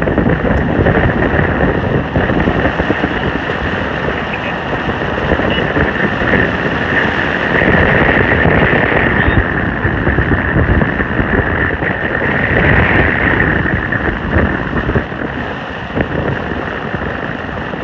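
Strong wind buffeting the microphone: a loud, steady rushing roar with no breaks.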